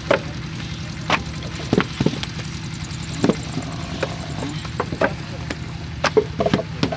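Irregular knocks and thuds of mud bricks being moulded by hand, with lumps of wet clay slapped into a wooden mould and the mould knocked on sandy ground. A steady low machine hum runs underneath.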